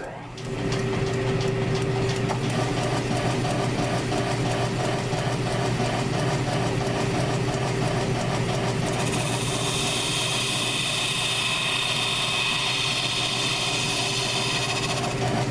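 South Bend lathe motor and spindle starting up, then running with a steady hum. About nine seconds in, a steady hissing scrape joins as the tool cuts along the spongy scooter wheel.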